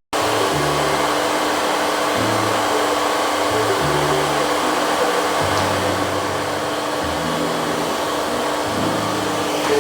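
A 1600-watt hair dryer running steadily, a constant blowing rush of air and motor, with background music playing underneath.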